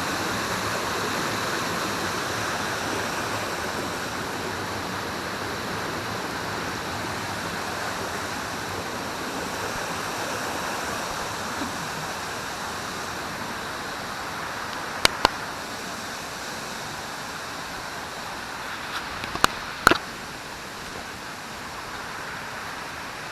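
Small waterfall and stream rushing steadily, slowly growing fainter. A few sharp clicks come about two-thirds of the way through.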